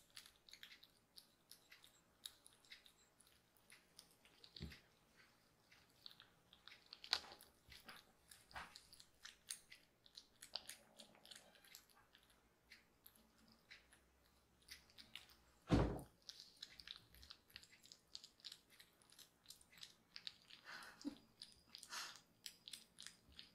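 Two kittens eating soft weaning food from ceramic bowls: faint wet chewing and lapping, with many small clicks of mouths and teeth against the bowls. There is one louder dull thump about 16 seconds in.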